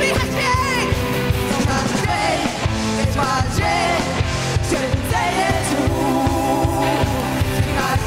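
Live worship band playing a song in Polish, with female voices singing over electric guitar and keyboard and a steady beat.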